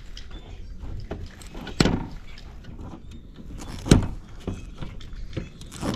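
Scattered clicks and knocks of scrap parts being handled and set down, with two louder knocks about two and four seconds in.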